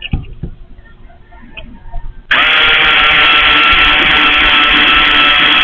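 Electric drill starting about two seconds in and running steadily at full speed, boring a hole for the camera mount's screws. Before it starts there are a few faint knocks.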